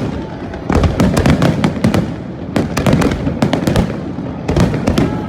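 Fireworks going off: rapid clusters of sharp bangs and crackles over a continuous rumble, with short lulls between the volleys.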